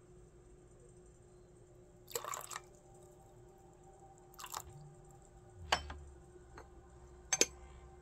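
A few short clicks and knocks of porcelain teaware being handled during gongfu tea brewing, the sharpest two close together near the end, over a faint steady hum.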